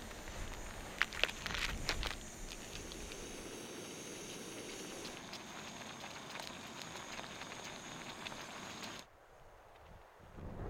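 Steaks sizzling in a frying pan over a hissing gas camping stove, with a few sharp clicks about a second in as the pan and meat are handled. The sizzle and hiss cut off suddenly about nine seconds in, leaving a faint hush.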